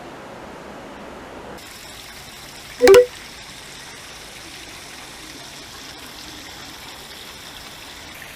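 Steady rush of flowing garden water, trickling and streaming, with a short, loud pitched call about three seconds in.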